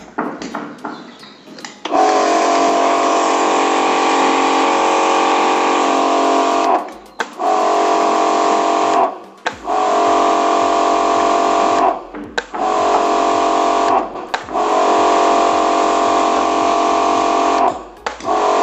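Electric pressure washer motor running with a spray hiss, starting and stopping six times in runs of about one and a half to five seconds, with short breaks between them.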